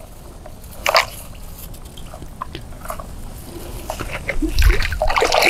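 Hands groping in shallow pond water among grass, making small irregular splashes, drips and clicks that grow busier and louder near the end.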